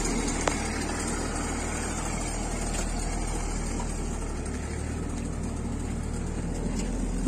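Old tractor's engine running steadily under load, pulling a trolley heaped with soil along a dirt track.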